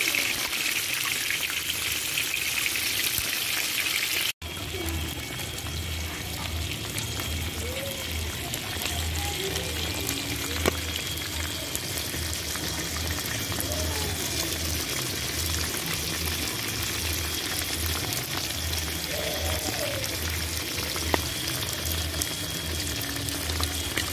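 Fish steaks frying in hot oil in an aluminium pot, a steady sizzle. The sound drops out for an instant about four seconds in, then the sizzling goes on with a low pulsing hum underneath and two sharp ticks.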